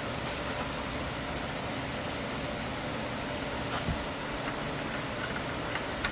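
Steady, even background noise like a running fan, with two light clicks of tools or parts being handled, about four seconds in and again at the end.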